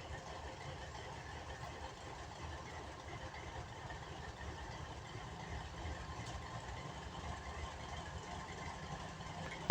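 Diesel engines of a 2TE116 twin-section locomotive (16-cylinder 5D49 diesels) running steadily with a low rumble, growing a little louder near the end.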